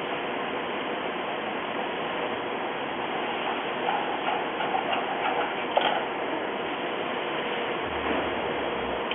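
Small metallic clicks and ticks of a 2.5 mm hex wrench working screws loose, clustered in the middle with one sharper click, over a steady hiss.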